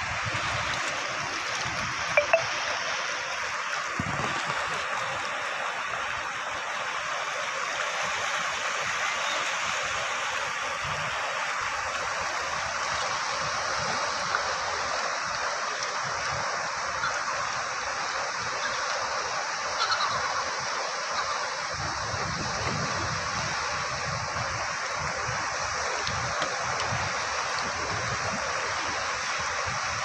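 Ocean surf breaking on a rocky shore and washing over the rock shelf: a steady, even rush of water.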